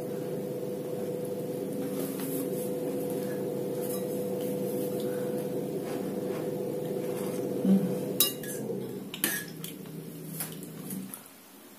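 Cutlery clinking against dishes a few times in the second half, over a steady hum that changes to a lower hum about nine seconds in and stops near the end.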